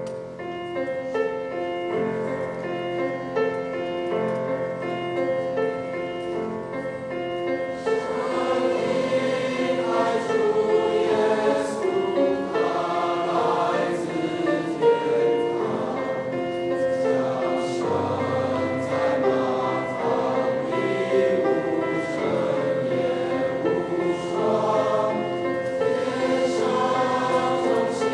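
Mixed school choir singing a Christmas carol in parts. It comes in suddenly and grows fuller and louder about eight seconds in.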